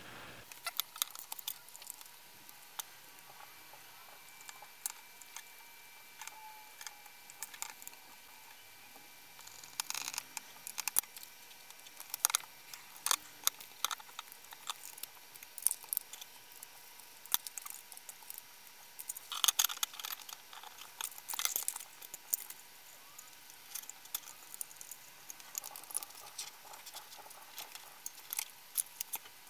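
Scattered small clicks, taps and light clatters of the clamp-on current probe's plastic housing and jaw parts being handled and pressed back together. There are louder clusters of clicks about ten seconds in and again around twenty seconds in.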